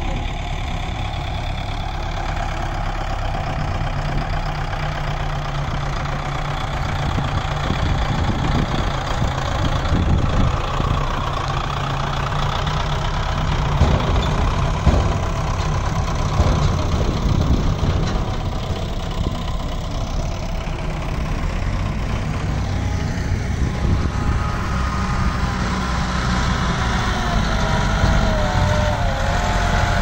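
Diesel farm tractors pulling tall high-sided trailers, their engines running steadily and passing close by, loudest about halfway through.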